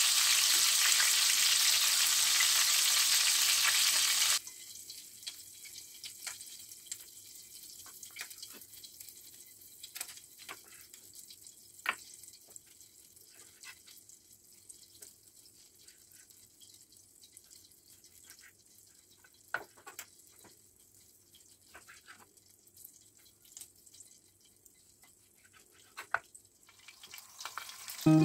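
Steak frying in butter in a glass baking dish, a steady loud sizzle that cuts off suddenly about four seconds in. Then a quiet stretch of scattered light taps and clicks from a knife slicing the cooked steak on a wooden cutting board.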